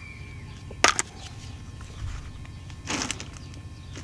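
Handling noise from a small plastic pocket radio case being turned over in gloved hands: a sharp click about a second in and a brief rustle near three seconds, over a faint steady hum.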